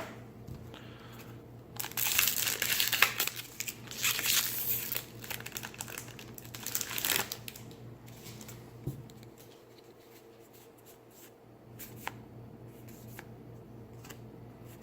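Foil wrapper of a Kaladesh booster pack crinkling and tearing open for about five seconds, then a few faint clicks as the cards are handled.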